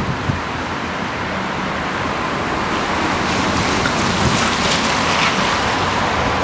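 Steady rushing noise, with two low thumps near the start, growing a little louder and hissier about halfway through.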